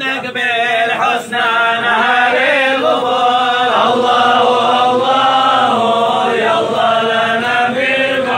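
Men's voices chanting Islamic devotional verses together, a melodic group chant with long held notes that slowly rise and fall.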